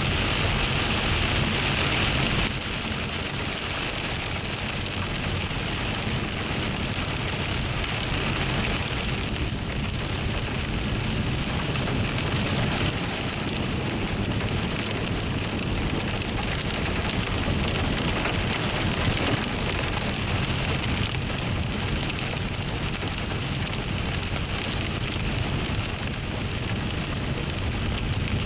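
Steady rush of rain and wind during a severe thunderstorm, an even noise that drops slightly about two and a half seconds in.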